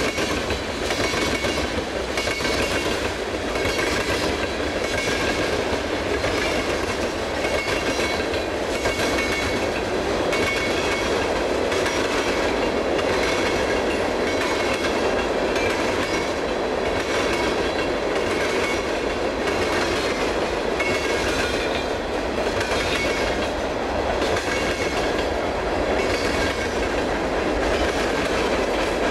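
Freight train of tank cars rolling past, the steel wheels clicking in a steady rhythm over the rail joints above a continuous rumble.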